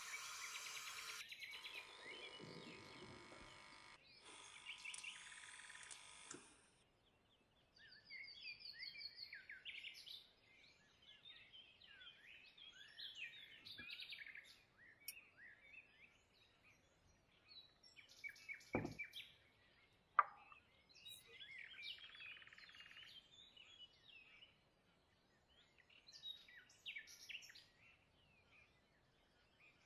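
Faint birds chirping in scattered short calls, after a steady hiss that stops about six seconds in. One sharp click near the middle.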